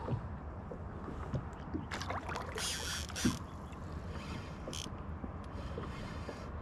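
A hooked catfish splashing and thrashing at the water's surface beside a kayak, loudest in a burst of splashing about two to three seconds in, over a steady low wash of wind and water.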